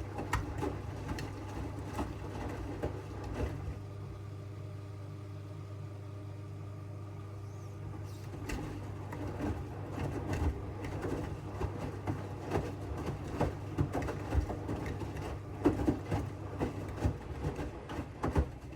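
AEG 8000 Series front-loading washing machine tumbling laundry in its drum: a steady motor hum with irregular thuds of the bath mats dropping, which calm for a few seconds about four seconds in and then return. The sound cuts off suddenly at the very end as the drum stops.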